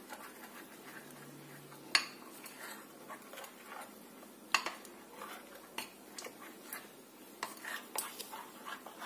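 A steel spoon stirring thin pancake batter in a glass bowl: soft scraping with several sharp clinks of the spoon against the glass, the loudest about two seconds in.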